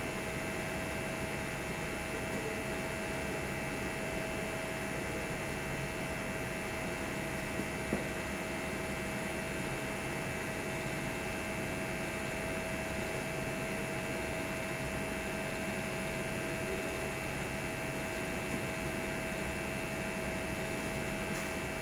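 TIG welding arc burning steadily on a stainless steel sanitary pipe flange joint: an even hiss with a steady hum. Two light clicks about eight seconds in.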